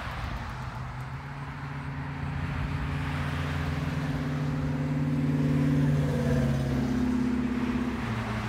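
A motor vehicle going past on the road, its engine hum growing to its loudest about six seconds in, then dropping in pitch as it moves away.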